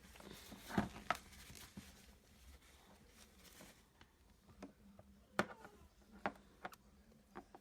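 Faint, scattered clicks and soft handling noises of small plastic toys being moved about in slime, the sharpest click about five and a half seconds in.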